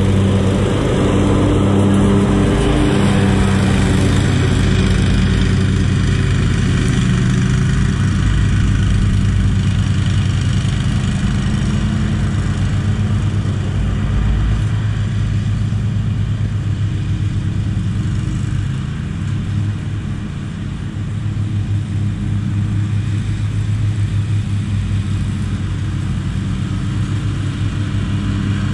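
Commercial zero-turn riding mower's engine running steadily at mowing speed, its hum wavering as the mower moves away and turns back, with a brief dip in level about two-thirds of the way through.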